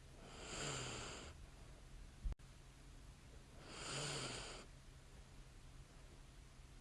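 A sleeping woman's light snoring breaths: two slow, soft breaths about three seconds apart, each with a faint low snore at its start. A brief sharp click falls between them.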